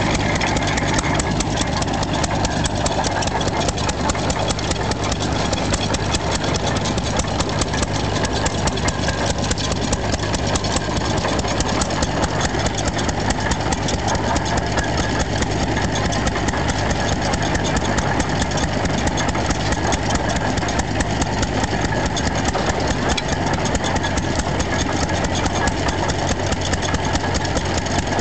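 Antique hit-and-miss stationary engine running steadily with a quick, even beat while it drives a hay baler.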